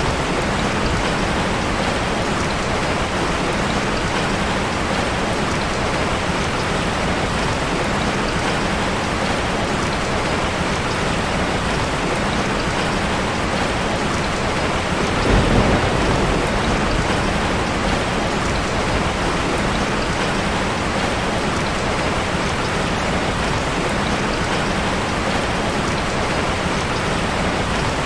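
Steady rain falling, an even hiss of drops on surfaces. About halfway through there is a brief louder low rumble.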